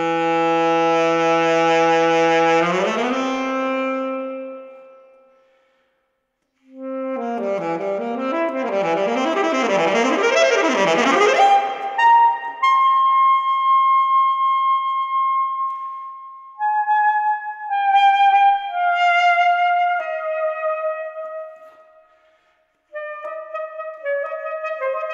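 Solo alto saxophone playing a free, unaccompanied passage. A low held note slides up about three seconds in and fades, then after a short pause come fast rising and falling runs, a long high held note, and a slow falling line of notes; after another brief pause the playing resumes near the end.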